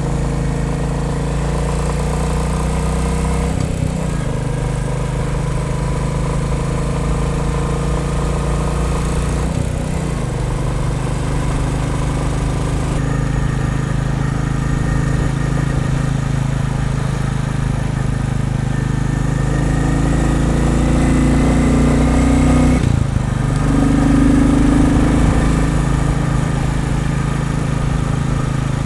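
Royal Enfield Bullet 350's single-cylinder engine running under load on the road, a steady beat with brief breaks about four, ten and twenty-three seconds in and a slowly rising note in between. The owner hears a wooden rattle or buzz in time with the firing under load at certain revs, which other owners take as normal for the Bullet and expected to soften as the engine runs in.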